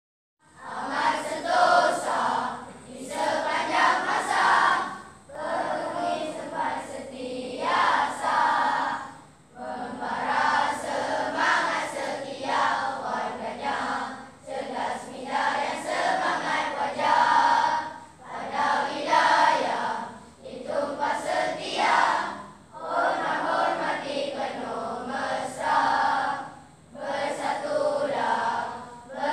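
A large group of children singing together in unison, line by line, with short breaks between the phrases.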